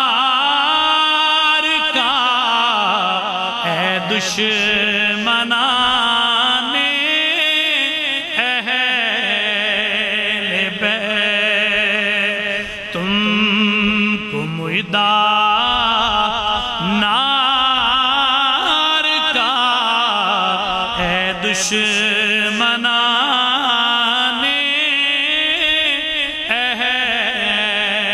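A man's solo voice chanting an Urdu manqabat (devotional praise poem) in naat style. He holds long, wavering notes, with short pauses between phrases.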